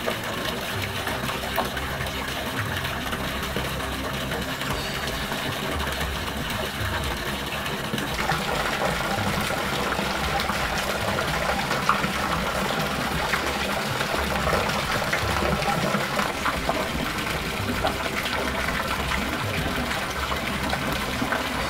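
Water falling from a pumped spout and splashing steadily, with a low machine hum under it.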